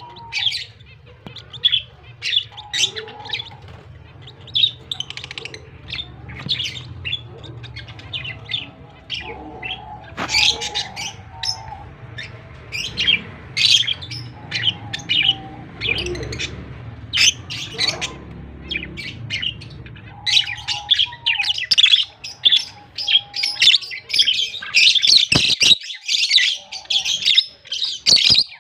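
Lovebirds chirping: a constant patter of short, high chirps that gets denser and louder about two-thirds of the way through, with short, lower whistled notes now and then and a couple of sharp clicks near the end.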